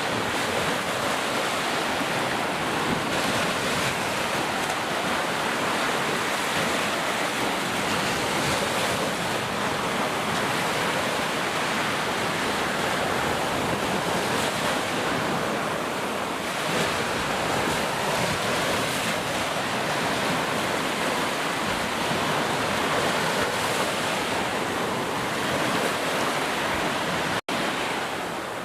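Heavy rain falling steadily, a dense even hiss with no distinct strokes, cutting out for an instant near the end.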